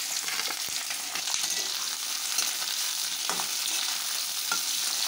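Chopped capsicum, onion and whole spices sizzling in hot mustard oil in a metal kadai, a steady frying hiss. A metal spatula scrapes and taps against the pan a few times as they are stirred.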